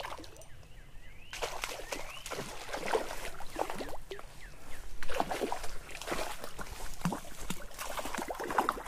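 Hooked rainbow trout thrashing at the surface of a shallow creek: repeated irregular splashes of water, the loudest about five seconds in.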